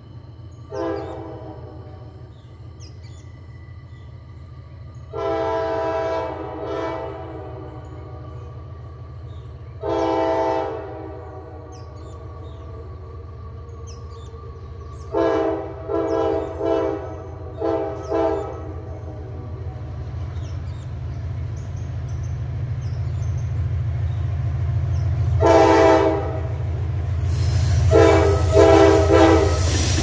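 Nathan K5LA five-chime air horn on an approaching diesel freight locomotive. It sounds a long series of blasts: a short toot, two long blasts, a group of four short ones, then more short blasts as it draws near. Underneath, a low engine rumble grows steadily louder, and wheel clatter starts right at the end as the locomotive reaches the microphone.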